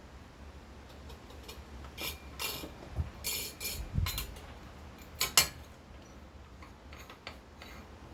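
Small metal hardware and tools being handled during fan-box wiring work: a run of clinks, clicks and light knocks. The two sharpest clicks come about five seconds in.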